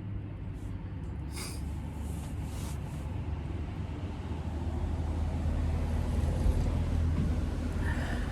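A low, steady engine hum that grows gradually louder, with a few faint rustles in the first few seconds.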